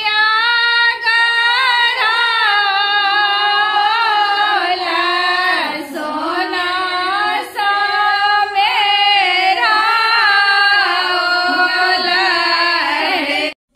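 Group of women singing a song together, one long continuous line of voices. It breaks off suddenly near the end.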